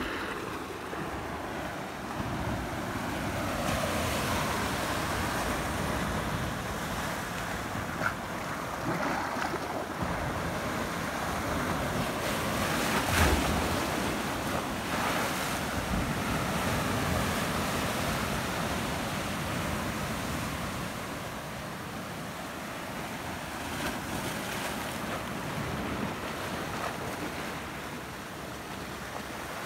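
Small sea waves surging and foaming among coastal rocks: a continuous wash of surf that swells and eases, with a brief louder surge about halfway through.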